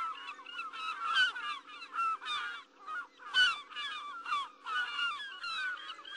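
A flock of birds calling: a dense, overlapping chatter of short squawks, over a faint steady hum.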